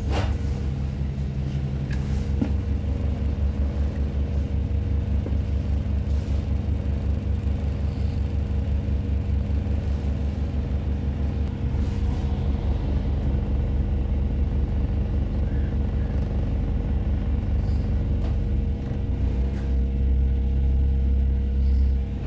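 Double-decker bus heard from inside on the upper deck while it drives in traffic: a steady low rumble with a continuous hum, which grows louder about 19 seconds in as the bus pulls away.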